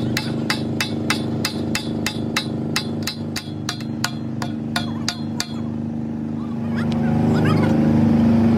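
Steady, evenly paced hammer blows on metal, about three to four a second, each with a short metallic ring. They stop about five and a half seconds in. Under them an engine hums steadily and grows louder near the end.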